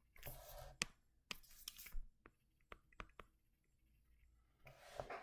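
Faint brushing noises with a handful of light, sharp clicks scattered through, otherwise near silence.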